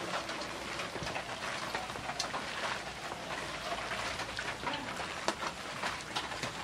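A hand mixing and squeezing a wet pakora batter of lentil paste, grated pumpkin, ash gourd leaves and sliced onion on a plate: a dense, irregular crackle of small wet clicks.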